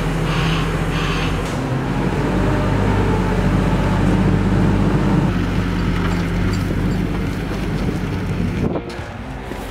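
JCB forklift engine running under load and revving up a little as it carries a pallet of plasterboard, with a warning beeper sounding about twice a second for the first second or so.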